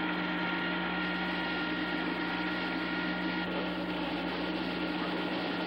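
Steady electric machine hum with an even hiss from belt-driven streetcar-washing machinery running. A couple of higher tones in the hum fade a little past halfway.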